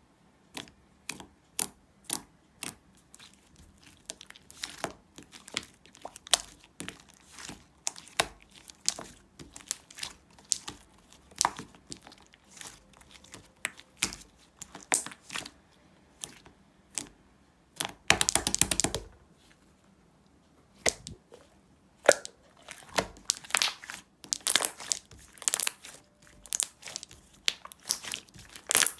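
Slime being squeezed and worked by hand, giving irregular sharp clicks and pops, with a dense run of crackling about eighteen seconds in.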